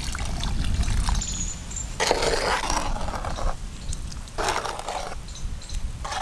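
Water poured from a clay jug into a clay pot of cooked rice, covering it for panta bhat. The rice is then stirred through the water with a metal spatula, splashing in two spells about two and four and a half seconds in.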